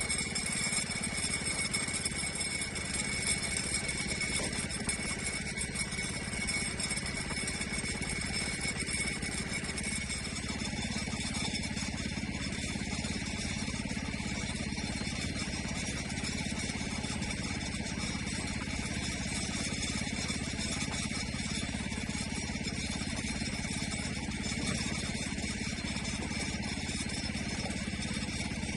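Engine of a gas-powered log-milling saw running steadily, a constant drone with a thin high whine above it.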